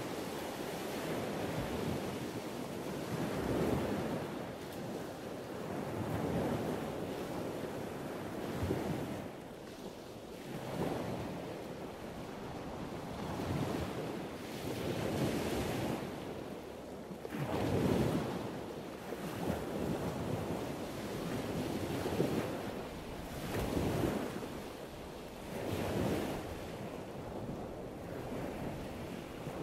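Muffled underwater rumble and hiss of a scuba diver's breathing through a regulator, with exhaled bubbles, swelling and fading every few seconds.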